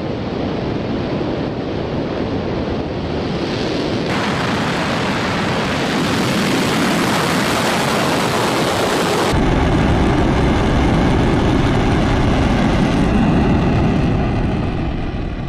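Soyuz-2 rocket's first-stage engines roaring at ignition and liftoff, a loud continuous rumbling roar. The roar grows deeper and heavier about nine seconds in.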